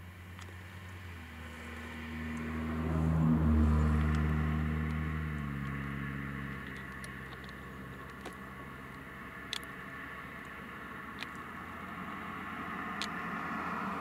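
A motor vehicle driving past: its engine hum and tyre noise swell to a peak about three to four seconds in, drop in pitch as it goes by, and fade into a steady road rush. A few faint sharp clicks follow later.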